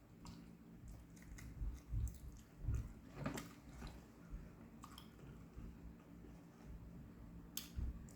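Close-miked chewing and biting of food, with scattered wet mouth clicks and smacks, over a faint steady low hum.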